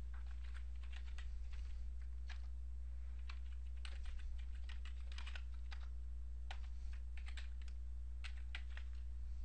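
Keystrokes on a computer keyboard in short, irregular runs of clicks, over a steady low hum.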